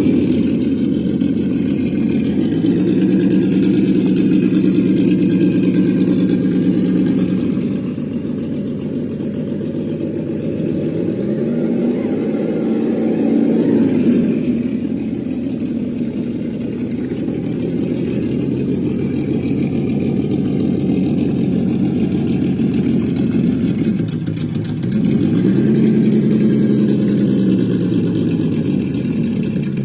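Simulated engine sound from an ESS-Dual sound module played through the speaker of a Traxxas TRX-4 RC crawler. It runs at idle and revs up and back down three times as the throttle is worked.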